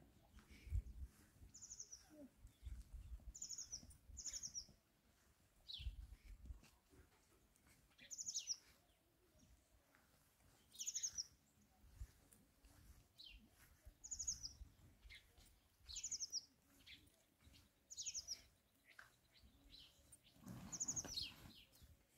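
Birds chirping faintly: short, high trilled calls and quick falling chirps, repeating every second or two. A few soft low thuds sound in the first seconds.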